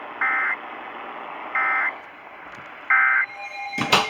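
Emergency Alert System end-of-message data burst: three short, identical bursts of shrill digital warbling tones about a second apart, over a steady radio hiss, marking the close of the alert. A sharp crackle follows near the end.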